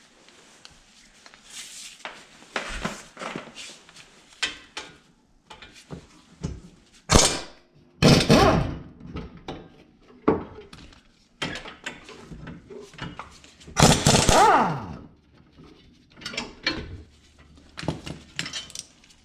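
Cordless impact wrench running in two bursts of about a second each, about eight and fourteen seconds in, undoing the caliper bracket bolts, its pitch falling as each burst ends. Metal clinks and knocks of tools and bolts come between the bursts.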